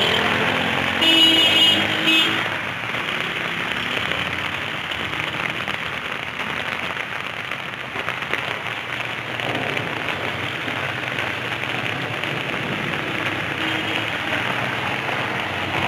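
Steady rain and muddy runoff water running over a street, with a car passing through the water. A short pitched sound, the loudest thing here, comes about a second in.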